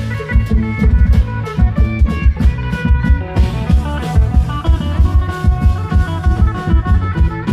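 Klong yao long-drum band playing lively Isan procession music: fast, steady drumming under a quick plucked-string melody.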